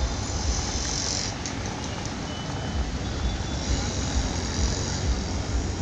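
Outdoor city ambience: a steady wash of distant road traffic with an uneven low rumble.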